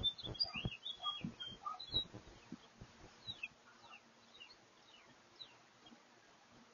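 Songbirds chirping and calling, with a few quick down-slurred whistles about three seconds in. Several short low thuds come in the first two seconds and are the loudest sounds.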